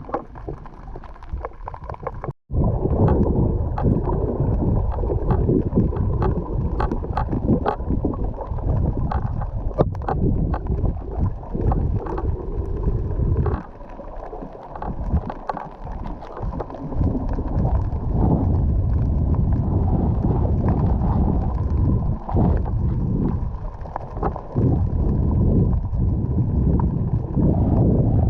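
Muffled water noise from a snorkeling camera, sloshing and bubbling, with scattered small clicks. The sound cuts out for a moment about two seconds in.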